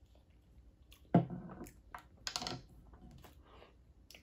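Small glass hot-sauce bottle having its cap twisted open: a few sharp clicks and scrapes, the loudest about a second in and another just past two seconds.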